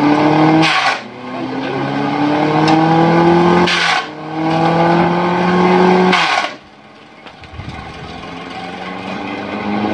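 Chaff-cutter chopping machine driven by a 1 HP electric motor over a V-belt, whining as it runs, with three loud bursts of chopping as a stalk is pushed into the blades: about a second in, around four seconds and just past six seconds. After each cut the motor's pitch drops under the load and climbs back as it recovers speed.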